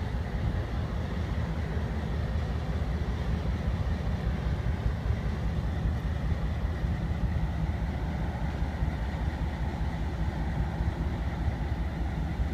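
MLW/Alco 251F 16-cylinder diesel prime mover of an LRC locomotive running steadily while warming up after a cold start, its exhaust still heavy with smoke.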